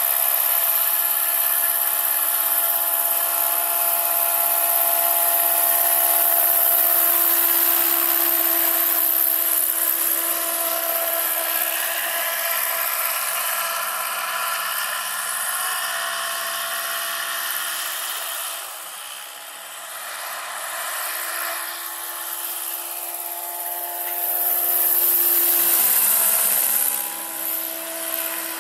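Electric scale model NH-90 helicopter in flight: a high whine from its electric motor and gearing over rotor noise. The pitch slides up and down several times as it flies past and turns, and the level dips briefly about two-thirds of the way through.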